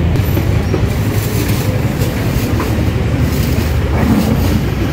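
A steady, loud low rumble with a few faint knocks.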